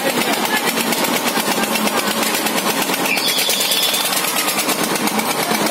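Fast, even rattling clatter over dense noise from fairground ride machinery running.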